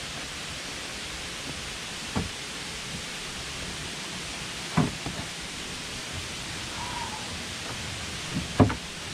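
Steady hiss of rushing water on a rainy trail near a waterfall, with three sharp knocks, the loudest near the end.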